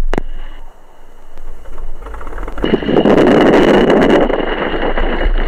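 1946 North American Navion's piston engine being started: the starter cranks it over with a rhythmic chugging, and about two and a half seconds in the engine catches and keeps running loudly.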